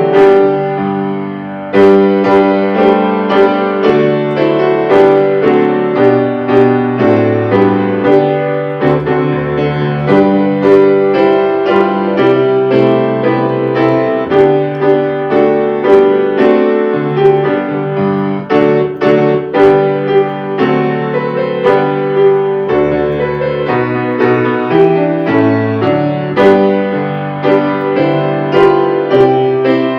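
Piano playing a continuous piece of struck notes over held chords.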